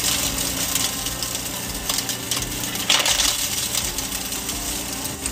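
Small electric K&M rock crusher running with a steady motor hum while chunks of ore rattle and crack through it and the crushed rock clatters down into a pan. The clatter comes in louder bursts near the start and again about three seconds in.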